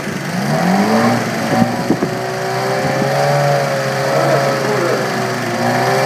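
Engine revving up about half a second in, then running steadily at raised speed, with a few sharp knocks around two seconds in.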